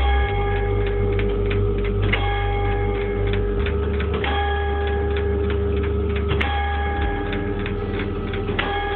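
Tower clock striking the hour: a bell is struck about every two seconds, five strokes here, each ringing on into the next. Between the strokes the striking train clatters and ticks as its fan fly spins.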